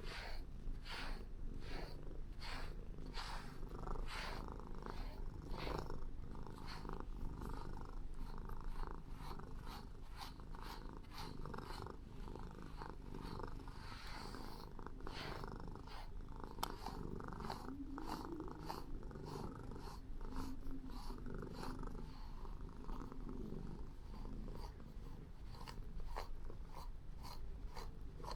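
Calico cat purring steadily, a low continuous rumble, with a regular run of short ticks about two to four a second over it.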